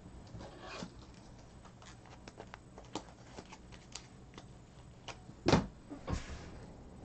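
Handling noise from a cardboard case of trading-card packs: scattered faint clicks and rustles, then a louder knock about five and a half seconds in and a softer one just after, as a hand reaches into the box.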